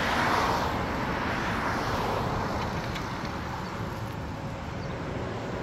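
Road traffic: a passing vehicle's tyre and engine noise, loudest near the start and fading over the next few seconds, over a steady low rumble.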